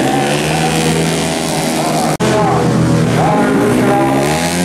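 Tuned racing scooter engines revving, mixed with background music. The pitch rises and falls near the end, and the sound cuts out very briefly about two seconds in.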